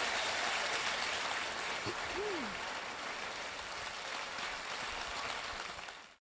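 Theatre audience applauding, the clapping growing gradually quieter and then cutting off suddenly near the end. A short voice call rises out of the applause about two seconds in.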